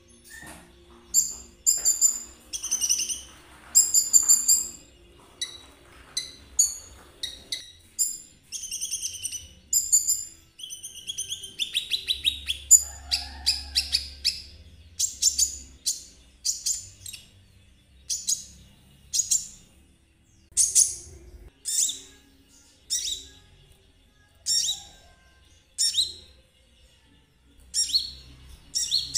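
Konin trotol sunbird singing: quick, high twittering phrases in the first half, then a long run of short, sharp chirps about one a second.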